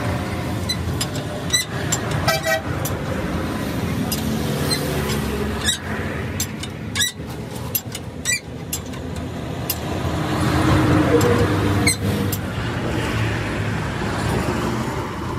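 Roadside traffic noise with vehicle horn toots and a vehicle passing loudly about ten to twelve seconds in, broken by short sharp metallic clinks of hand tools on metal.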